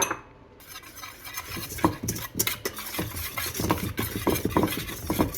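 Dry waffle ingredients (flour, salt and sugar) being stirred together in a bowl: a quick, busy run of scraping strokes that starts about a second in, after a sharp tap right at the start.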